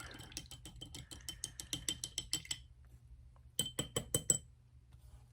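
A brush being rinsed, clinking rapidly against the inside of a glass water jar with a light glassy ring. It pauses, then gives about five sharper taps on the glass.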